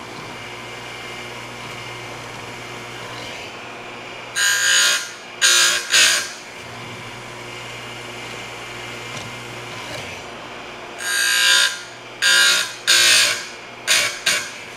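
Stihl USG electric chainsaw sharpener's grinding wheel running steadily, brought down onto the chain's cutter teeth in short, high-pitched grinding strokes. The strokes come in two groups of quick taps, three a little after four seconds in and about five near the end: the sharpener's forward-and-back double tap on each tooth.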